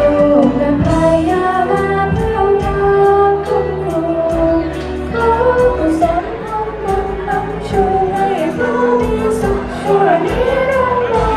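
Song with a woman singing over a band accompaniment with a steady beat.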